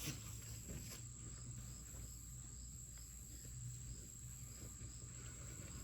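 Faint outdoor insect chirping, typical of a cricket: short chirps repeating about twice a second over a low steady hum.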